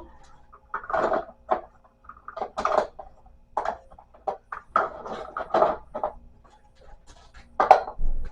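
Pens and pencils being handled and put into a desk organizer: irregular light clicks and clatters of plastic and wood, the loudest one near the end.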